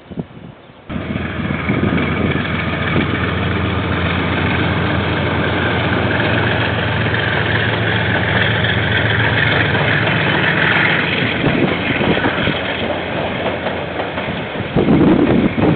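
KiwiRail diesel-electric locomotive running steadily as it passes hauling a container freight train. The sound starts abruptly about a second in. Near the end the rolling of the wagons on the rails gets louder.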